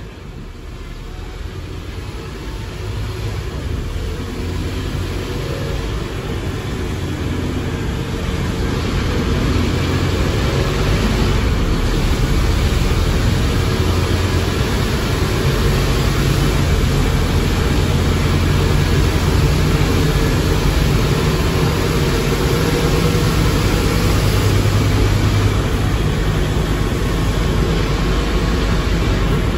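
Scania K230UB bus drivetrain heard through an open floor hatch: the ZF Ecomat IV 6HP504C automatic gearbox and the 9.3-litre Scania DC09 engine running under way. It grows louder over the first ten seconds, then holds steady, its low tones shifting in pitch a few times.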